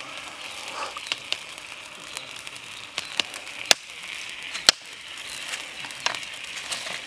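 Kitchen knife cutting through crisp grilled pork ribs on leaves over a wooden stump: a series of sharp crunching clicks and knocks, the loudest two around the middle, over a steady background hiss.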